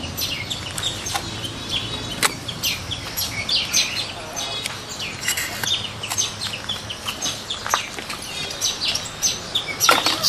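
Birds chirping, with many short, rapid chirps throughout and a couple of sharp clicks.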